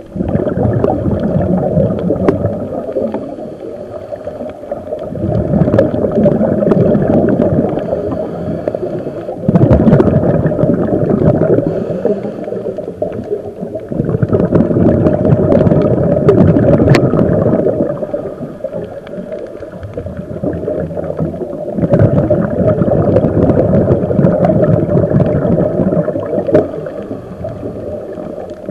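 Underwater sound through a camera housing on a scuba dive: the diver's regulator breathing, a muffled rushing and gurgling of exhaled bubbles that swells and eases every few seconds.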